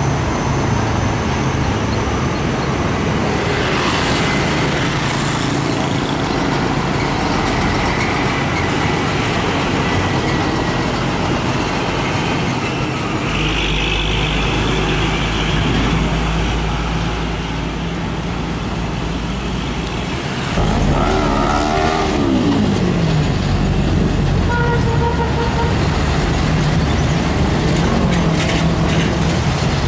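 Heavy diesel trucks running and pulling past at low speed: a steady engine drone over traffic noise. About 21 seconds in, a pitched sound rises and falls over roughly two seconds, and the engine noise grows a little louder after it.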